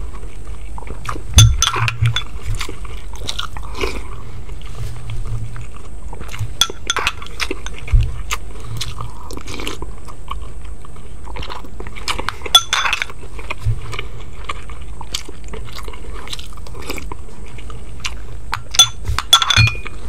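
Close-up eating sounds: chewing and crunching food, with scattered sharp clicks and clinks of utensils against a dish, over a steady low hum.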